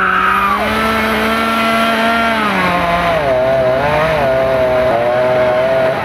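Chainsaw engine running hard in the tree, a high steady whine that drops in pitch about halfway through and then wavers up and down, as under load.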